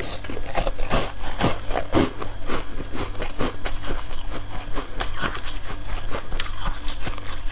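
Frozen foam ice being bitten and chewed: a run of crisp, irregular crunches, several a second.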